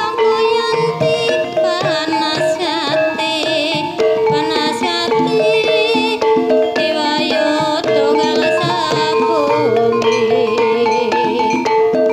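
Live jaranan-dangdut music for an ebeg dance: drums keep a steady beat under held pitched notes, and a high melody line wavers with a strong vibrato.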